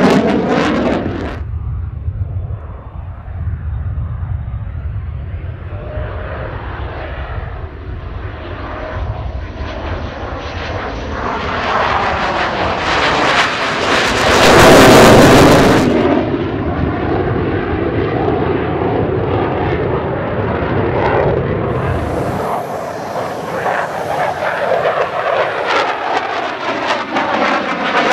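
Single-engine HAL Tejas fighter's turbofan jet flying past. The engine noise builds to a loud peak about halfway through with a sweeping, phasing whoosh as the jet passes, then fades to a rumble. It swells again near the end.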